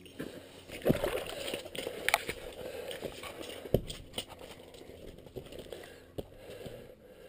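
A trout just pulled up through an ice-fishing hole flopping and thrashing on the ice and against the angler's hands: irregular thumps and slaps with scraping and crackling between them. The loudest knocks come about a second in and again near four seconds in.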